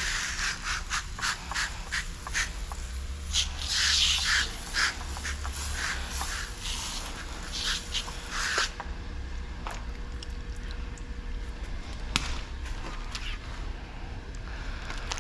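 Spray bottle hissing in short bursts, several times with clicks in between, as the glass is wetted before the tint film goes on. Later it is mostly scattered light clicks and taps.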